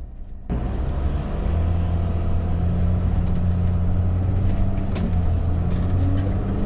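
RV engine running steadily under way with road noise, a low hum; the sound jumps abruptly louder about half a second in.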